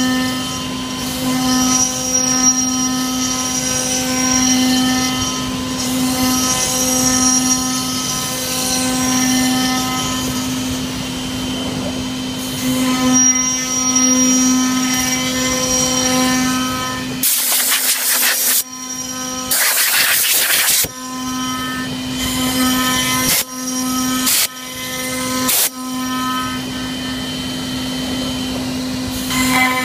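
CNC router spindle running with a steady whine as its cutter bores round recesses into a camphor laurel board. Just past the middle come two loud bursts of rushing noise, and the sound breaks off briefly several times near the end.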